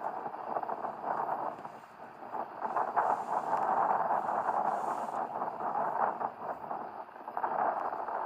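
Heavy rain falling, a dense steady patter that swells and eases, loudest around the middle.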